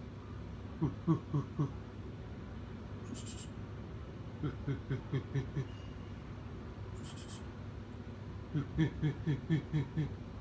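An owl hooting in three runs of short low hoots, about five a second: four hoots about a second in, six or seven in the middle, and about eight near the end. Two brief high jingling clicks come between the runs.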